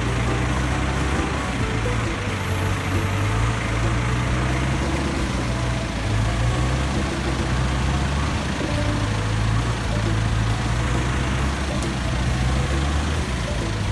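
Off-road 4x4 vehicle engine running steadily at a low, even pitch.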